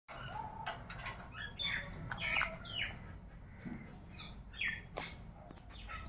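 Rose-ringed parakeets giving a series of short chirping calls, with sharp clicks scattered between them.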